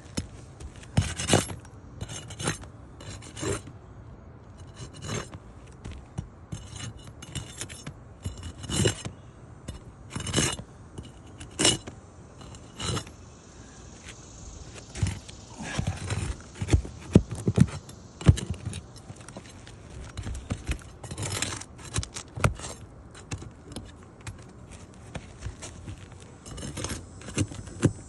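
Asphalt roof shingle being worked loose to be pulled out: irregular scraping and rubbing of the shingle and tool, broken by uneven sharp clicks and knocks, busiest about halfway through.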